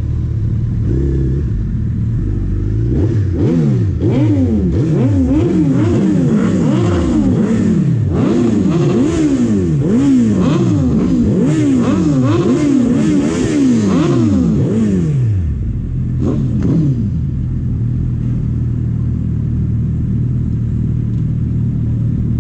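Sport-bike engines revved in quick, repeated throttle blips, each rev sweeping up in pitch and falling back, about one a second and overlapping as more than one bike revs. About two-thirds of the way through the blipping stops and the engines settle to a steady idle.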